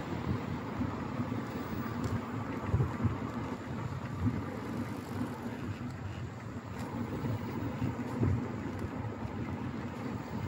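Uneven low rumble of wind on the microphone of a moving rider, mixed with the noise of street traffic.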